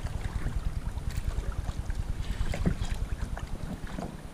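Wind buffeting the microphone as a steady low rumble, with a few faint ticks and taps.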